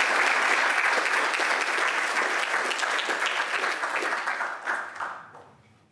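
Audience applauding, with steady clapping that thins out and dies away in the last second.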